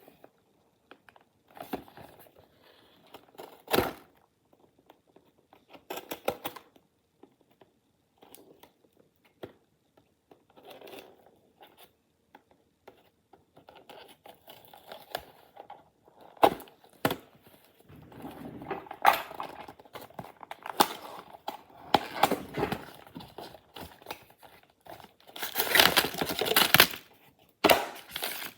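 Packaging being handled and opened by hand: intermittent rustling, tearing and crumpling with scattered sharp knocks and clicks. The handling grows busier in the second half, with a long loud rustle a few seconds before the end.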